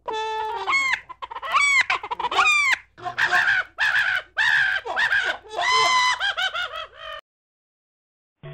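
A rapid series of loud, high-pitched animal calls, many rising and then dropping sharply, that cut off suddenly about seven seconds in.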